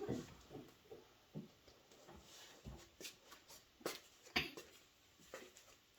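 Scattered light taps and clicks from plastic Play-Doh tools and pieces being handled on a table while dough is cut and shaped.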